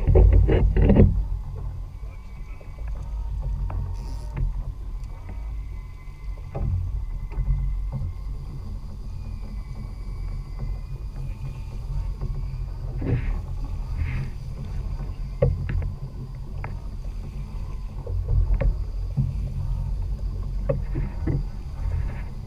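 Small outboard-powered fishing boat at sea: a steady low rumble with scattered knocks and clicks from the deck, the loudest cluster right at the start.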